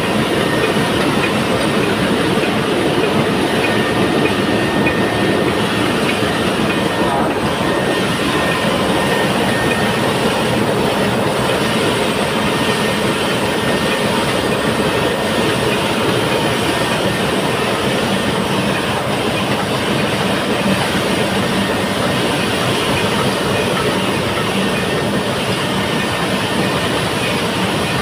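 Large marine diesel engine running, heard up close: a loud, steady din of rapid mechanical clatter that does not change.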